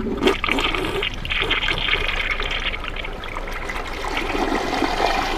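Siphonic single-piece toilet flushing: a sudden rush of water into the bowl, swirling round it and draining through the siphon. The rush is strongest for the first three seconds, then settles lower.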